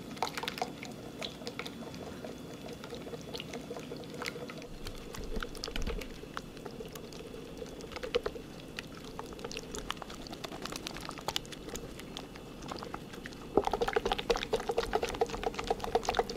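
Wire whisk beating a runny cream-and-mayonnaise dairy mix in a glass bowl: a steady, wet, liquid sloshing with a rapid run of light clicks of the wires against the glass, louder and more vigorous about 13 seconds in.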